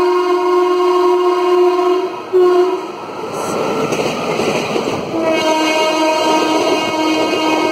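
Horn of an Indian electric locomotive sounding a long chord, then a short second blast, as an express train runs through a station at speed; the rush and rumble of the locomotive and coaches passing fills the middle, then the horn sounds again, slightly lower in pitch, as the train goes by.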